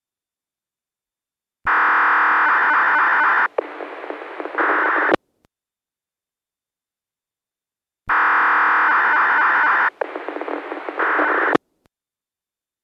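Answer-back signals from the outdoor sub-stations of an analog disaster-prevention radio system, heard through a handheld scanner receiver: two transmissions of about three and a half seconds each. In each, a steady tone turns into a warbling data signal with hiss, and the receiver's squelch cuts it off with a click, leaving dead silence between them.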